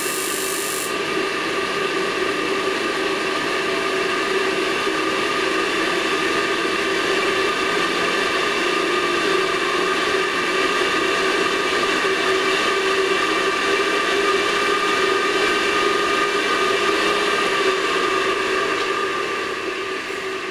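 Handheld gas torch flame burning with a steady hiss and whir, held to a boiler's rod flame-sensor electrode. The highest part of the hiss drops away about a second in, and the sound eases a little near the end.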